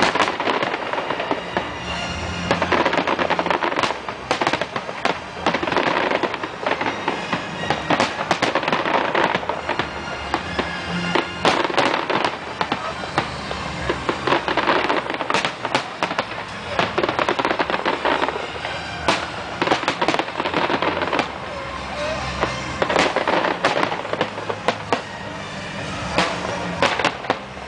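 Large aerial fireworks display: a dense, continuous barrage of bangs from bursting shells, with crackling in between.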